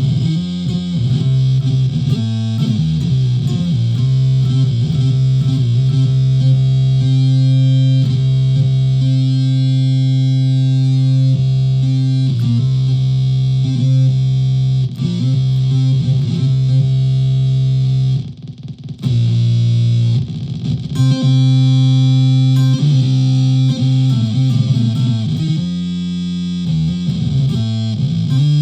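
Solid-body electric ukulele played through a home-built effects pedal and amp modeller into a PA speaker: held notes over a steady low note, with pitch bends. It stops briefly about two-thirds of the way through.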